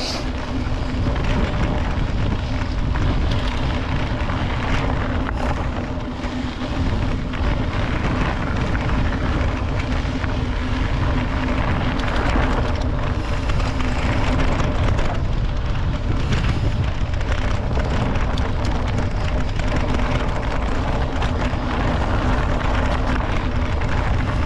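Wind buffeting the action camera's microphone and a mountain bike's tyres rolling over a rough dirt trail at speed, with short rattles and knocks from the bike over the bumps.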